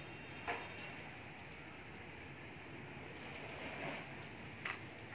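Water showering from the rose of a metal watering can onto soil and broad leaves: a steady patter like light rain. Two short sharp taps come through, about half a second in and near the end.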